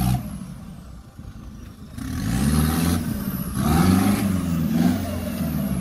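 Off-road 4x4 engine revving in surges, its pitch rising and falling, pushed hard about two seconds in and again near four seconds.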